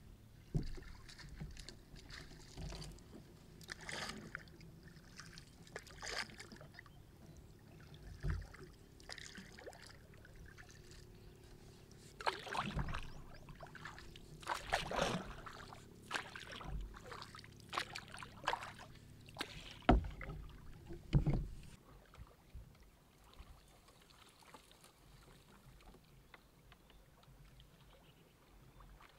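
Small boat being paddled through flooded brush: irregular splashes and knocks from the paddle in the water and against the hull every second or two, the loudest near the two-thirds mark, stopping soon after.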